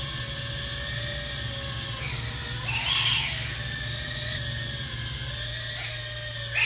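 Multirotor drone motors and propellers whining in a hover, several pitches wavering together over a low hum, swelling briefly about three seconds in and again near the end.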